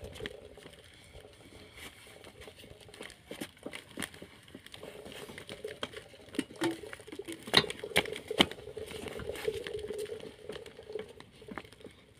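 Sugarcane stalks being crushed in a hand-turned roller cane press: a run of crackling and snapping from the splitting cane, with two sharp cracks in the second half and a steady tone through the middle part as the press turns.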